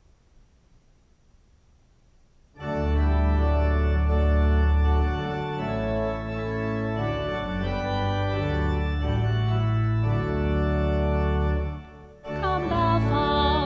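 Near silence for about two and a half seconds, then organ music in sustained chords over a steady bass line. It breaks off briefly about twelve seconds in and comes back with a wavering melody on top.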